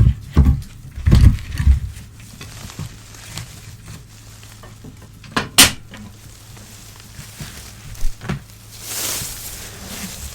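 Old newspaper being handled and torn. There are several dull thumps and crackles in the first two seconds, a sharp snap about five and a half seconds in, and a longer rustling rip about nine seconds in.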